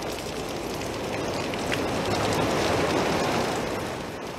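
Heavy rain pouring down onto a wet cobblestone street, a steady rushing hiss that swells a little in the middle and eases slightly near the end.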